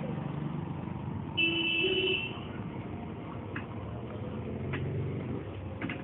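Steady street-traffic noise, with a brief vehicle horn sounding about a second and a half in that steps up in pitch. A few sharp clicks follow later.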